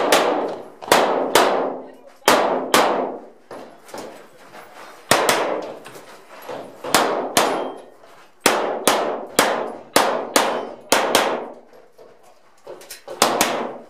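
A 9mm Glock 17 pistol fired in rapid pairs and short strings, about twenty shots with short pauses between groups, each shot ringing off briefly.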